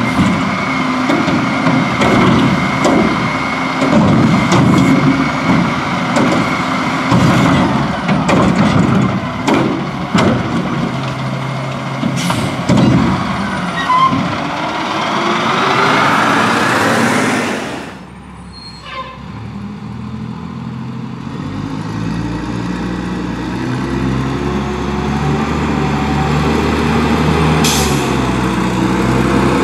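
Front-loading garbage truck running at work, with repeated clanks and knocks over the engine and a rising whine as it revs for a few seconds before a sudden cut. After the cut, a garbage truck's diesel engine runs steadily and grows louder as the truck approaches along the street.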